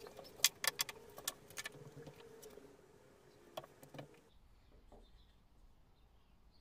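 Light wooden clicks and knocks from small pallet-wood pieces being handled and set down: a quick cluster in the first two seconds and two more about four seconds in. Under them runs a steady hum that cuts off abruptly about four seconds in.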